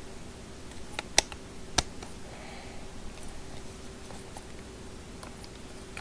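Clicks and taps of screwdriver bits being handled and pushed into a plastic bit holder, with two sharp clicks just after one second and near two seconds and lighter ticks between, over a faint steady hum.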